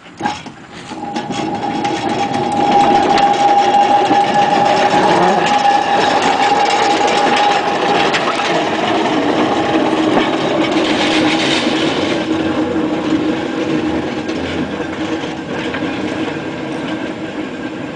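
Whitcomb storage battery mine locomotive pulling away on narrow-gauge track: its electric traction motor and gearing whine over the clatter of steel wheels on the rails, after a few clicks as it starts. The whine steps down to a lower pitch about halfway through, and the sound fades a little near the end as the locomotive moves off.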